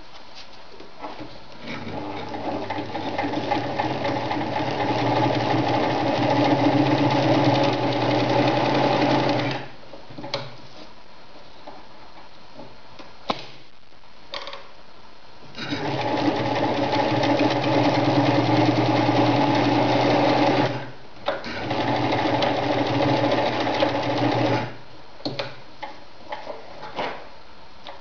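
Victoria Nutzstich ZZ-580 electric sewing machine stitching cotton fabric. It runs in three stretches: the first picks up speed and then runs steadily until about ten seconds in, and two more runs later are split by a short break. A few light clicks fall between and after the runs.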